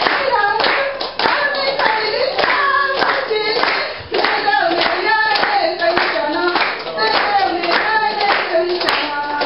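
A congregation singing a praise chorus together and clapping along in time, about two claps a second.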